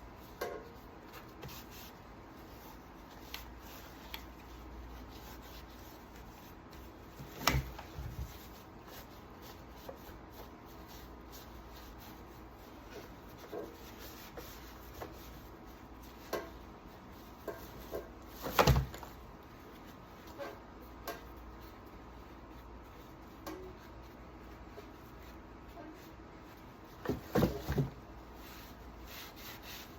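Occasional knocks, clicks and rubbing as chainsaw parts and tools are handled on a work surface. The loudest knock comes about two-thirds of the way through, and a quick cluster of knocks comes near the end.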